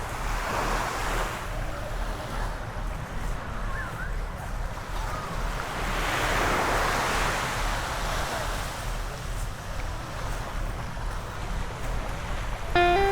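Small, calm sea waves washing onto the shore, two slow washes swelling and fading, about a second in and again about six seconds in, over a low rumble of wind on the microphone. Music starts at the very end.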